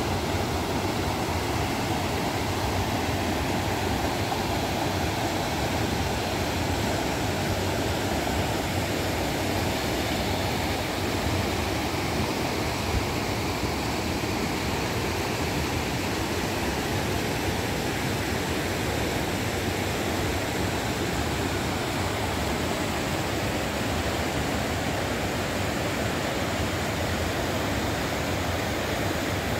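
Steady rush of flowing river water, a constant even hiss with no change in level.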